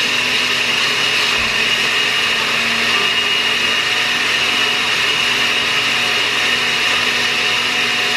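Oster countertop blender running steadily, a constant whir with a steady high whine, pureeing onion, ginger and garlic in a little water.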